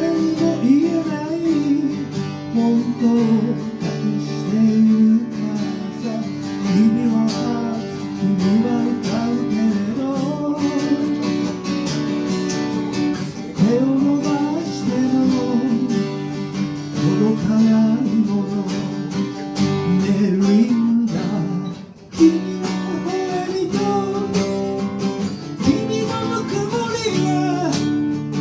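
Live acoustic guitar music: strummed chords with a melody line over them, with a brief drop in level about 22 seconds in.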